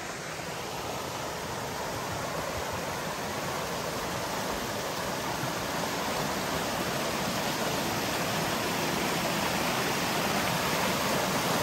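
Rushing water of a rain-swollen mountain stream, a steady hiss that grows gradually louder as it is approached.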